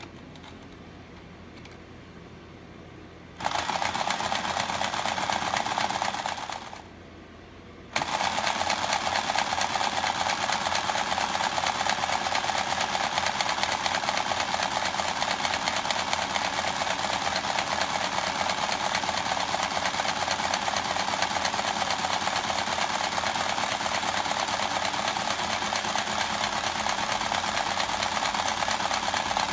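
Tabletop mechanical horse racing game running, its drive mechanism making a steady, fast buzzing rattle as the horses advance. It starts about three and a half seconds in, dies away briefly around seven seconds, then starts again and runs on.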